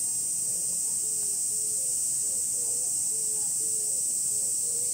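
Cicadas in the summer trees, a steady high-pitched buzzing that does not let up, with short low notes repeating faintly beneath it.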